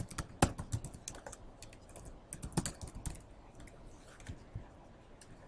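Typing on a computer keyboard: a quick, irregular run of key clicks that thins out to a few scattered clicks after about three seconds.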